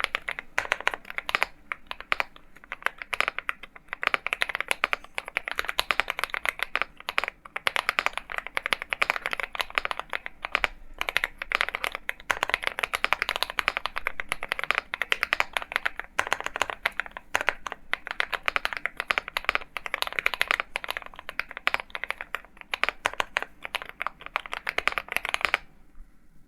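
Fast, continuous typing on an Akko MonsGeek M1 mechanical keyboard with KTT Kang White V3 linear switches: a dense stream of key clicks and bottom-outs. The typing stops just before the end.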